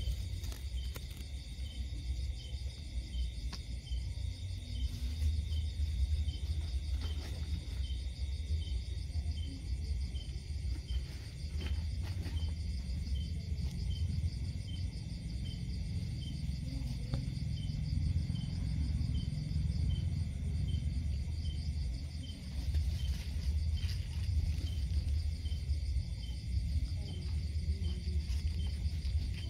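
Night insects calling: a regular high chirp about three times every two seconds over a steady high trill, with a steady low rumble underneath.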